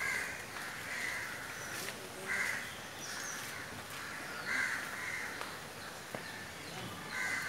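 Harsh, cawing animal calls, repeated every second or two.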